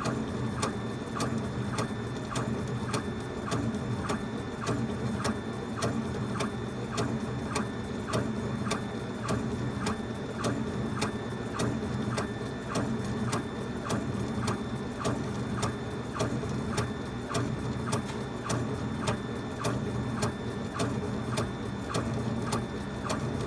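Laser engraver running, raster-burning a wood faceplate: the head clicks evenly at the end of each back-and-forth pass, about two clicks a second, over a steady low hum.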